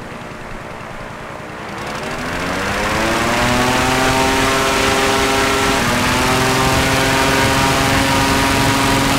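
Large engine-driven propeller wind machine spooling up. Its pitch rises over about two seconds with a growing rush of air, then it runs steady at speed.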